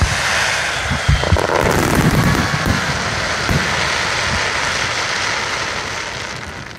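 Aerial fireworks crackling densely, with a few booms in the first half, fading away near the end.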